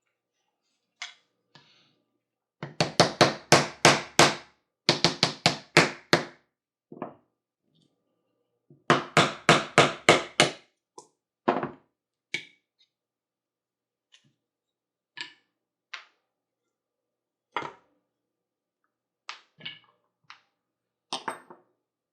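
Hard tapping in three quick runs of about five blows a second, like a small hammer striking, followed by scattered single knocks.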